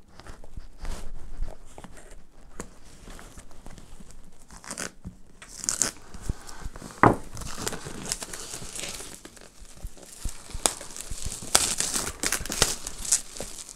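Plastic shrink-wrap on a cardboard headphone box being slit with a pocket knife and pulled off, crinkling and crackling in irregular bursts. There is a sharp click about seven seconds in.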